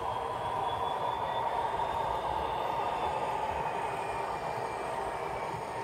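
OO gauge model freight train running past: a steady rolling rumble of wagon wheels on the track, with a faint whine that drifts slowly in pitch.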